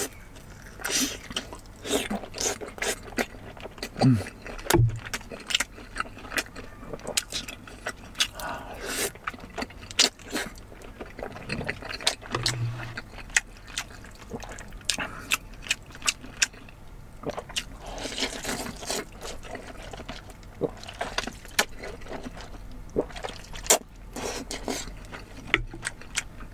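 Close-miked eating sounds: wet chewing and mouth noises with many short clicks and scrapes throughout.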